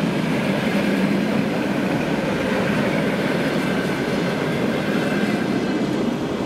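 ED4M electric multiple unit passing close by: steel wheels running over the rails with a steady loud rolling noise and a faint high whine over it. The noise eases slightly near the end as the tail of the train goes by.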